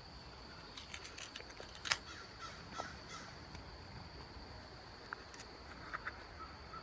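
Faint clicks and ticks from a small plastic lure kit being handled and worked open, scattered through the first few seconds with a sharper click about two seconds in, and a few more later. A steady high-pitched whine runs underneath.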